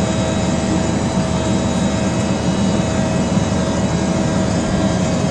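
Farm tractor's engine running steadily while the tractor drives along, heard from inside the cab, with a steady whine over it.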